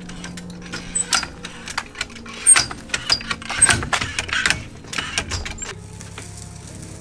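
A quick irregular run of sharp clicks and knocks over a low steady hum.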